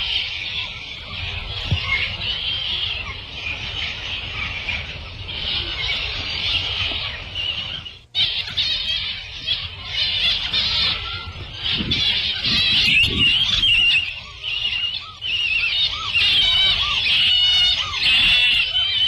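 Jungle-ride sound-effect track of dense tropical bird calls, chirping and warbling on top of one another. The track breaks off for an instant about eight seconds in, then the calls carry on.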